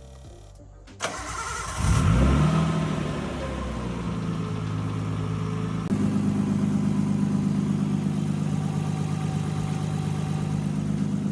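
R32 Nissan Skyline engine cranking on the starter for about a second, catching with a brief rev flare, then settling into a steady idle. The engine has just been dosed with hydraulic lifter additive for a lifter tick, which may not be fully cured. The idle grows louder about six seconds in.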